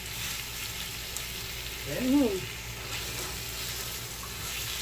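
Mutton liver and chopped coriander sizzling on a hot tawa griddle while a spatula stirs and turns them. About two seconds in there is a short squeak that rises and then falls.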